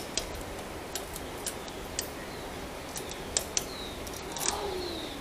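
Scattered light metallic clicks and ticks, roughly one every half second to a second, as a nut and bolt are worked by hand to fasten a rubber mud flap to a motorcycle's crash guard bar.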